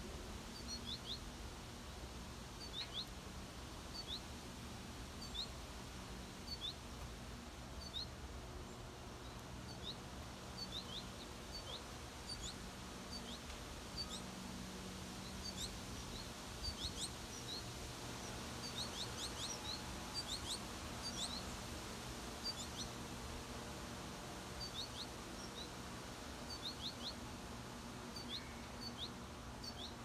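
Small songbirds chirping: short, high, quickly falling chirps in pairs and small groups about every second or two, coming thicker about two thirds of the way through, over a steady low background hum.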